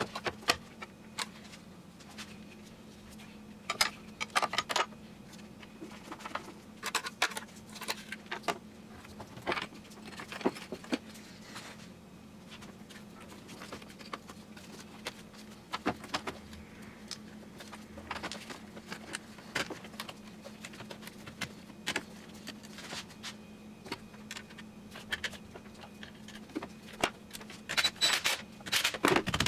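Irregular metallic clicks, clinks and light knocks of hand tools and car parts being handled during reassembly, busiest near the end, over a faint steady low hum.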